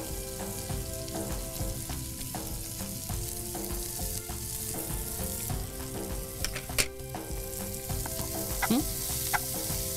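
Corn kernels sizzling in a hot frying pan on a gas flame, with a spatula stirring through them in the later part and a sharp click about seven seconds in.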